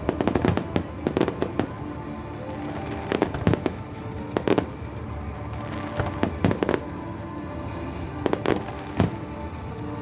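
Aerial fireworks bursting in quick clusters of sharp bangs every second or two, the loudest a little past three seconds in, over steady background music.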